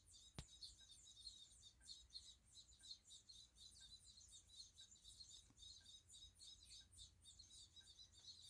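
Faint, rapid, high-pitched chirping of nestling birds begging for food, with one sharp click about half a second in.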